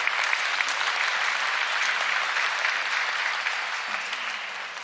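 Sumo arena crowd applauding, a dense patter of many hands that fades away near the end.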